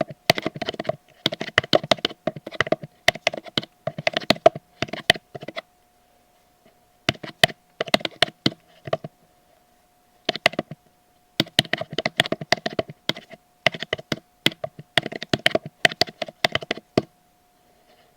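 Typing on a computer keyboard: rapid runs of key clicks in bursts of a few seconds with short pauses between them, over a faint steady hum.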